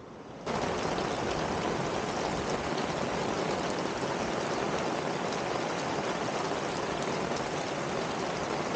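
Steady rushing noise of water, cutting in abruptly about half a second in.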